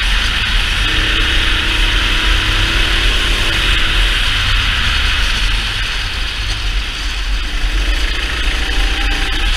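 Go-kart engine running at speed, its pitch rising under acceleration early on the straight, easing off for a few seconds past the middle, then climbing again near the end. Heavy wind rumble on the kart-mounted camera's microphone.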